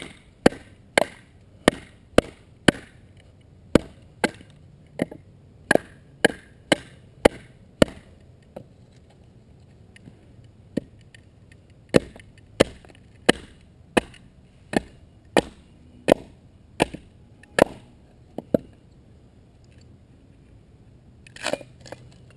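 Batoning a bushcraft knife through wood: a wooden baton strikes the knife's spine in sharp, regular blows about twice a second, with a pause midway. A short crackle comes near the end.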